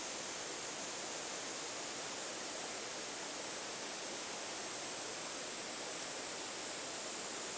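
Steady rush of a mountain river flowing over rocks, with a thin steady high buzz on top.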